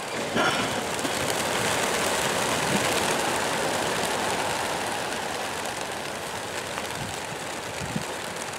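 Wings of a large flock of racing pigeons beating as they take off from the transporter. It is a steady rushing flutter that swells over the first seconds, then slowly fades.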